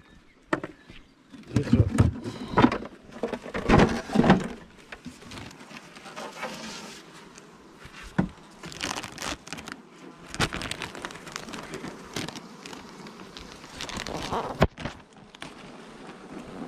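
A beehive being worked by hand: irregular knocks and scrapes of the hive parts, with crinkling of the plastic sheet that covers the frames as it is handled and peeled back near the end.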